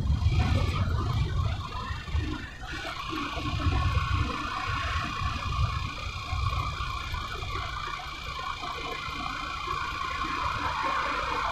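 Road and traffic noise heard from a vehicle moving along a city street, with an uneven low rumble of wind on the microphone.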